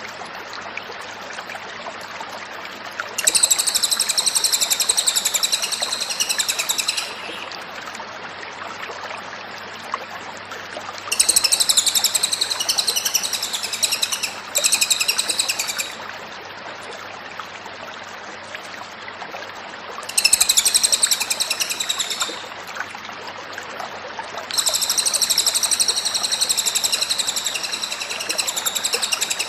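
Cililin songbird singing vigorously in long bursts of rapid, high-pitched song, four phrases of about two to four seconds each separated by pauses, over a steady faint background noise and low hum.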